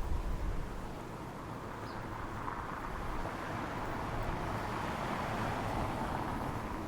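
Steady outdoor background noise: a rushing hiss that swells slightly in the middle, with no distinct events.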